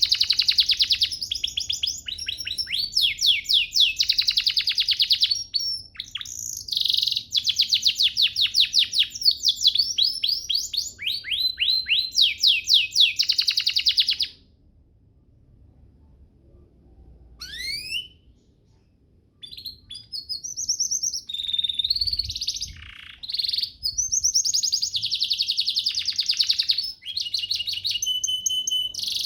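Domestic canary singing: long runs of fast, rolling trills made of rapidly repeated high notes. The song breaks off for about five seconds midway, with a single short rising note in the gap, then resumes.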